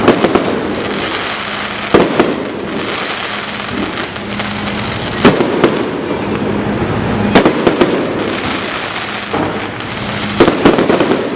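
Aerial fireworks shells bursting, loud bangs in quick groups of two or three every two to three seconds, each trailing off in echo over a continuous crackling din.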